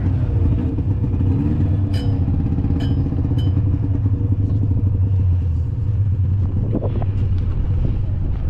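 Steady low rumble of a vehicle in motion, with two sharp clicks about two and three seconds in.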